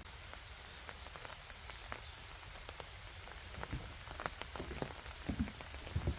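Rain falling in a forest, with irregular drops ticking on leaves and surfaces. From about halfway through, a few soft low thumps are heard.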